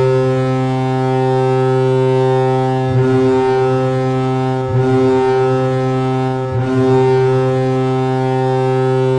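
Colorado Avalanche's arena goal horn blasting one long, deep, steady note, wavering slightly three times along the way.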